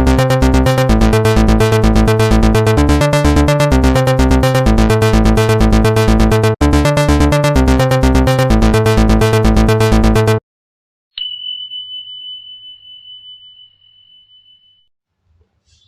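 Electronic music with a steady beat that stops abruptly about ten seconds in, followed by a single bright ding that rings out and fades over about four seconds.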